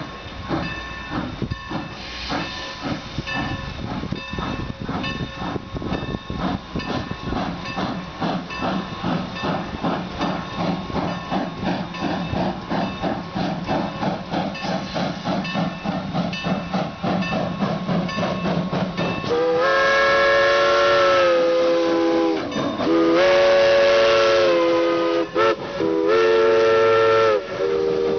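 Norfolk & Western 4-8-0 steam locomotive No. 475 working a passenger train, its exhaust chuffing in a regular beat. About two-thirds of the way in, its whistle of several tones sounding together blows long, long, short, long, the grade-crossing signal.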